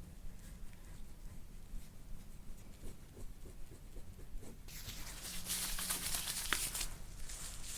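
Rubbing and rustling from hands working over a patient's back during soft-tissue massage, with a louder two-second stretch of rubbing about five seconds in.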